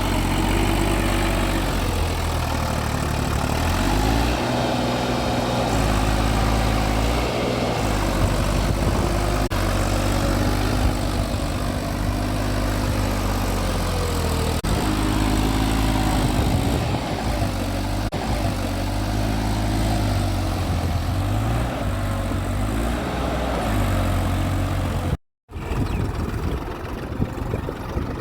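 Combine harvester's diesel engine running steadily under load, its pitch rising and falling in places. The sound cuts out for a moment near the end.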